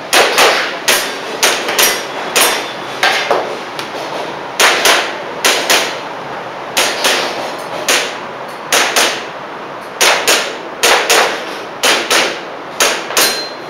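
Airsoft pistol fired rapidly in quick pairs and triples, around two dozen sharp shots, with a short pause about four seconds in.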